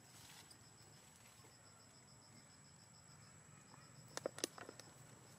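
Near silence with a faint, evenly pulsing high tone, broken about four seconds in by a quick cluster of sharp clicks or taps.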